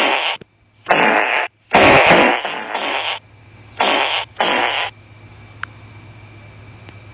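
A run of fart sounds: about five separate farts in the first five seconds, the longest about a second and a half, then they stop.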